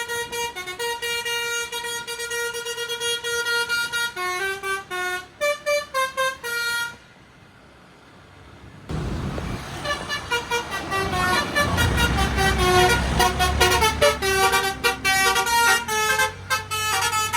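Basuri telolet musical bus horn playing a quick tune of short pitched notes that stops about seven seconds in. After a two-second gap a sudden rush of noise and a bus engine rumble come in, and the horn tune starts again over them.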